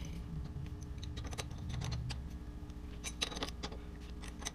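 Faint, scattered metal clicks and clinks as tongue-and-groove pliers are handled and clamped onto a brass compression fitting on a refrigerator's ice maker water line, with a small cluster of clicks about three seconds in, over a low steady hum.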